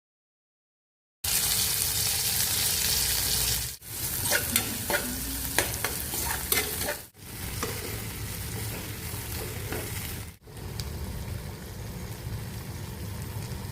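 Okra (bhindi) sizzling as it fries in a pan, starting after about a second of silence. A spatula scrapes and clicks against the pan as it is stirred. The sizzle cuts out briefly three times.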